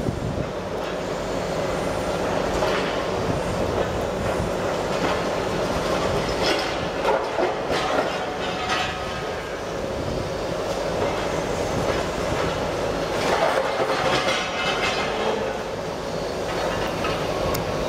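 Komatsu PC350LC demolition excavator working: a steady engine and hydraulic drone with louder crunching, clattering bursts of broken concrete and steel, strongest about seven to eight seconds in and again around thirteen to fourteen seconds.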